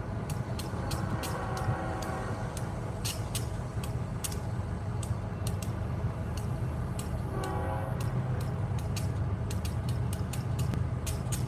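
Distant approaching train: a faint steady low rumble, with the locomotive's multi-note air horn sounding about a second in and again near the middle-to-late part. A steady run of sharp high clicks sounds throughout.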